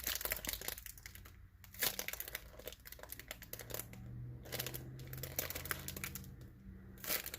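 Crinkling and rustling in irregular bursts as a handmade squishy toy and its tag are handled and squeezed.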